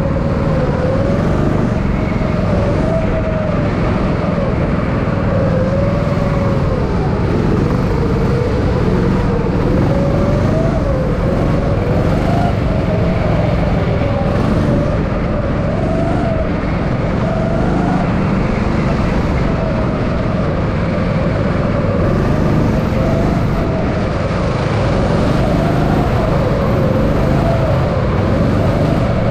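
Go-kart engine running hard, its pitch rising and falling again and again as the kart speeds up and slows through the track's corners.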